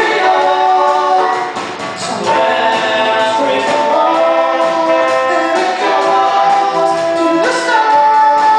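A band performing live, with singing in held notes that change every second or so.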